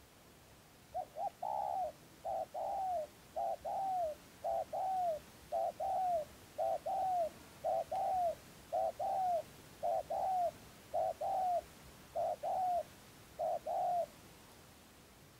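Spotted dove giving its continuous bowing coo, about a dozen two-part coos roughly a second apart, each a short note followed by a longer falling one. This is the steady, repeated cooing ('rền gù') wanted from a decoy dove at a trap.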